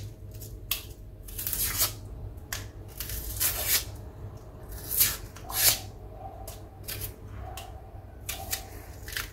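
Kitchen handling noises during food preparation: about a dozen short, irregular rustling and scraping sounds over a faint steady hum.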